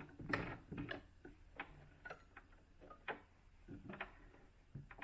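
Light, unevenly spaced clicks and ticks, about two a second, from hands working at a sewing machine and the sewn elastic.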